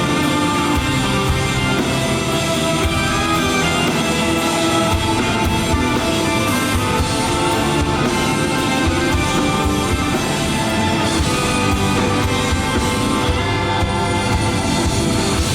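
Rock band playing an instrumental passage live, with electric guitars over a steady drum beat.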